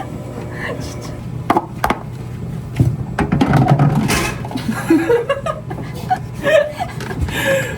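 Kitchen work: utensils and dishes clinking and knocking now and then, with low voices in the background.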